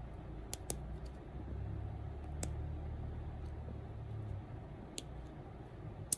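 A few sharp, isolated clicks, about five spread irregularly, the loudest near the end, over a low steady hum.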